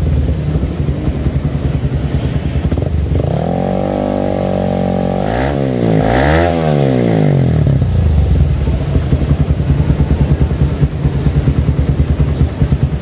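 Suzuki Satria FU 150's single-cylinder four-stroke engine running through an aftermarket racing exhaust. It idles, is revved and held for a couple of seconds about three seconds in, is blipped twice, then drops back to a pulsing idle. The carburettor has a fresh 17.5 pilot jet and its air screw is being set, and the idle sounds stable.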